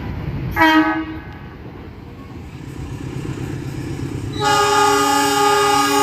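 Train horn over the low rumble of a train: a short hoot about half a second in, then a long, loud, chord-like blast from about four and a half seconds in, the kind of long horn signal drivers give as a greeting.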